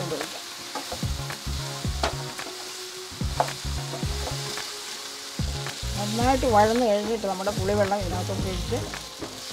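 Wooden spatula stirring and scraping eggplant strips in a nonstick frying pan, with a steady sizzle of the vegetables sautéing in oil. Background music with a wavering melody comes back in over the second half.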